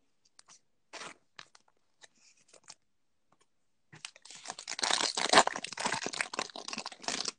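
A Panini Select basketball card pack's wrapper being torn open and crinkled by hand: a few light handling rustles, then a dense crackling tear lasting about three seconds from a little past halfway.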